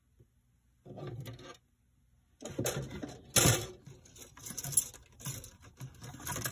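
Plastic model-kit parts trees (sprues) being picked up and handled: irregular light clattering and rustling of plastic, a short burst about a second in, then a busier run from the middle on, loudest a little past the middle.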